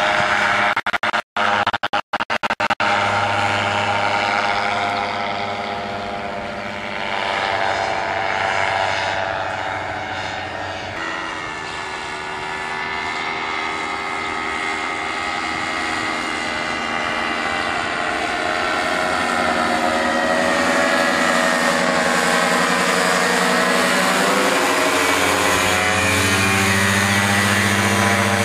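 Minitrike ultralight's small engine and pusher propeller running steadily at power in flight. Its pitch shifts as the trike climbs and passes, and it is loudest near the end as the trike comes close overhead. The sound cuts out briefly a few times in the first few seconds.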